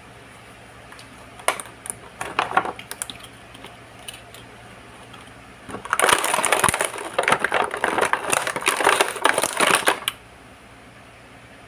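Packaging being handled and crinkling as a toy is unboxed: a short burst of crinkling, then about four seconds of dense crinkling that stops abruptly.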